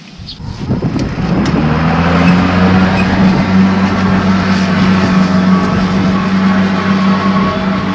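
An engine running steadily at a constant speed with a low, even hum, growing louder over the first second or so.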